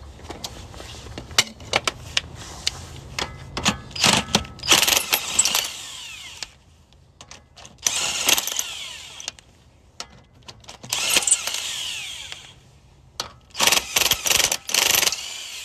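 Power impact wrench running in four short bursts of a second or two, spinning lug nuts off a car wheel, with metal clicks and knocks between the bursts.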